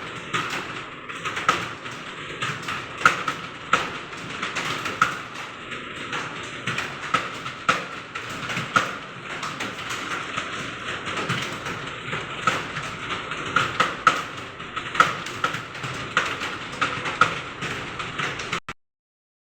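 Fast typing on a computer keyboard: a continuous, irregular stream of key clicks with some louder keystrokes standing out. The sound cuts out completely for a moment near the end.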